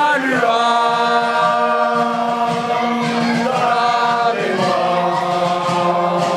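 A group of people singing together in unison, holding long drawn-out notes, with a change of note about two-thirds of the way through.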